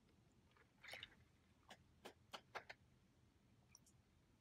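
Near silence with faint eating sounds from a person's mouth: a short soft burst about a second in, then a handful of quiet clicks over the next second.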